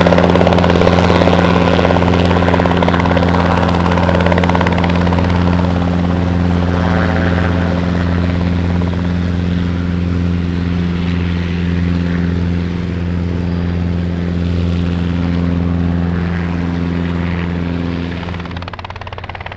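Robinson R22 Beta helicopter in flight, its two-blade main rotor and piston engine giving a steady low hum that slowly fades as it moves away after takeoff. The sound cuts off abruptly near the end.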